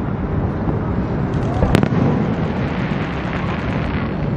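Aerial fireworks bursting: a continuous low rumble of booms, one sharp crack just under two seconds in, and a spell of fine crackling around it.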